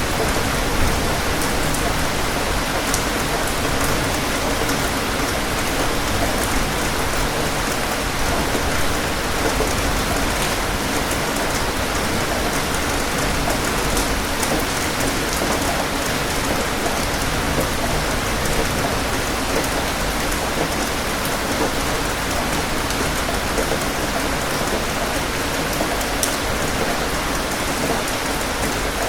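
Steady rain falling on a surface, an even hiss with scattered sharp drop ticks.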